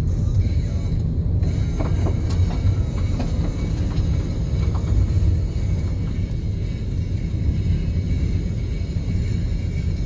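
Steady low rumble of a car's engine and tyres on the road, heard from inside the cabin, with a few faint ticks between about two and five seconds in.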